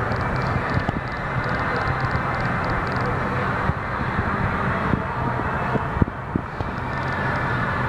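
Steady murmur of a ballpark crowd over a low background rumble, heard inside the large enclosed stadium.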